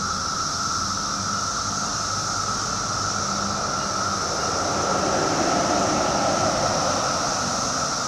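Dense chorus of 17-year periodical cicadas (Magicicada), a continuous droning whine made of a steady lower buzz and a high hiss. It swells slightly about five seconds in.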